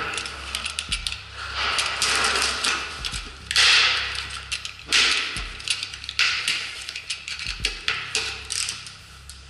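Utility knife cutting round the plastic lid of a Sheetrock joint-compound bucket: about six scraping, clicking cuts through the plastic, one after another, under a steady low hum.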